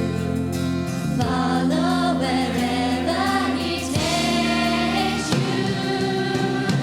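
Youth choir singing a gospel song with instrumental accompaniment, holding long drawn-out notes over steady chords.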